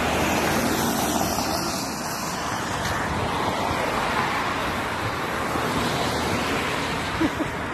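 Steady road traffic noise, cars passing on the street.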